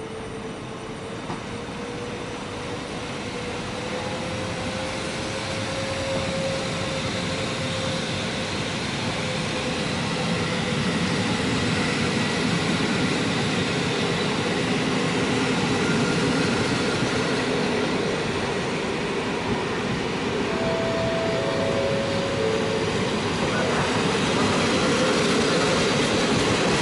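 PKP Intercity passenger coaches rolling past on the rails, the wheel-on-rail noise growing steadily louder as the train gathers speed. A faint whine rises in pitch over the first few seconds, and a few brief high squeals come about three-quarters of the way through.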